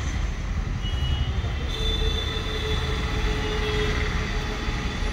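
Steady low rumble of passing road traffic, with a thin high squeal from about one second in that lasts two to three seconds.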